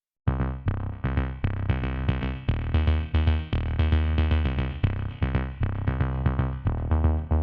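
Electronic music: quick repeated synthesizer notes over a bass line, starting abruptly after a brief silence at the top.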